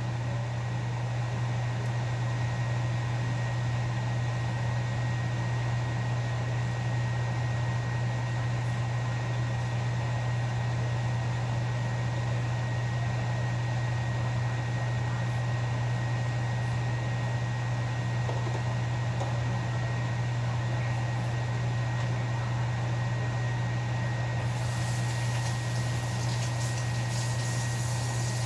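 Steady low electric hum of a running kitchen appliance, with a thin high tone over it and more hiss coming in about four seconds before the end.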